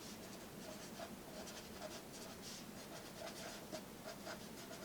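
Faint scratching of a pen writing and drawing, a quick run of short strokes.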